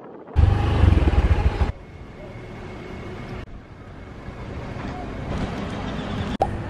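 Short clips of outdoor sound cut together. A loud, low rumble of vehicle and wind noise lasts about a second and a half, then gives way to quieter street ambience with traffic.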